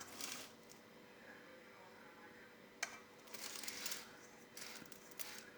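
Close-up eating noises from agar-agar jelly being eaten: a few short bursts of wet, hissy mouth noise, with a sharp click about three seconds in.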